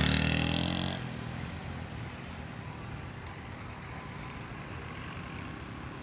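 Small motorcycle engine running as the bike passes close and rides away, its sound fading over the first second or so and leaving only a faint steady background noise.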